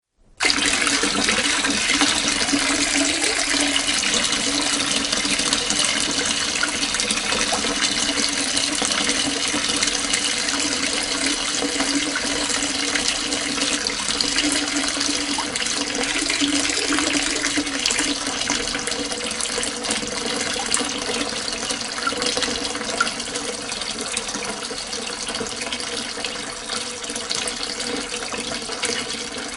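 Water pouring steadily from a tap into a half-full sink, splashing into the standing water. It starts abruptly about half a second in and eases slightly near the end.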